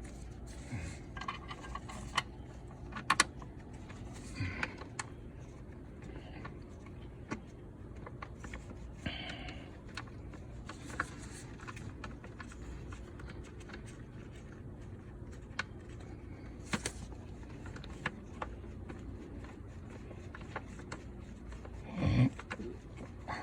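Scattered small metal clicks and taps of bolts and hand tools while short bolts are started into an intake manifold bracket, with a louder dull bump near the end.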